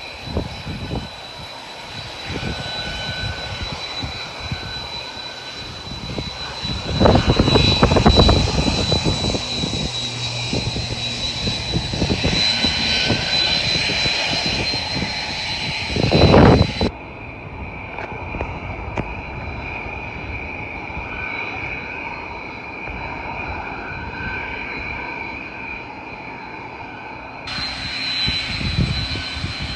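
Airliner engines running with a steady high-pitched whine under a low rumble, swelling louder twice, about 7 seconds and 16 seconds in.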